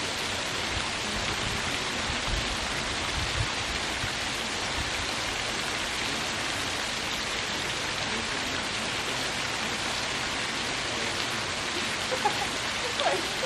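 Small waterfall: water splashing steadily over rocks in an even rush, with a few faint short sounds near the end.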